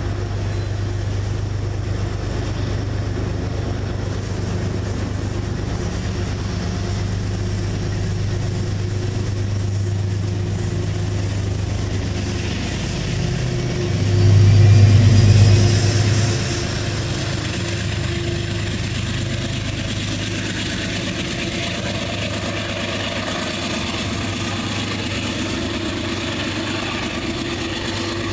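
Diesel locomotive engine idling steadily with a low hum. About halfway through it surges louder for a couple of seconds, with a hiss.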